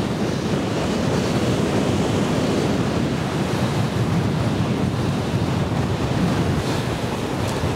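Strong wind blowing across the microphone: a steady rushing noise, heaviest in the low end.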